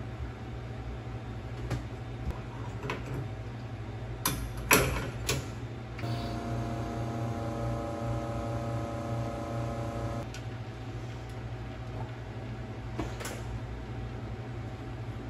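Metal clicks and clatter of a portafilter being handled at an espresso machine, the loudest about five seconds in. Then the espresso machine's pump runs with a steady hum for about four seconds and cuts off, and a few more knocks follow. A low steady hum lies under it all.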